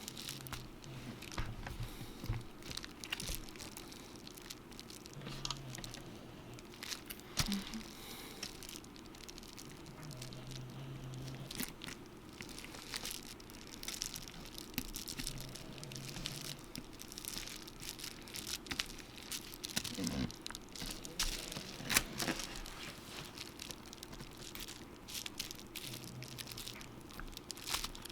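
Small repair tools and phone parts clicking and scraping, with crinkling and tearing noises, as the home button is worked loose from a cracked iPhone 7 Plus screen.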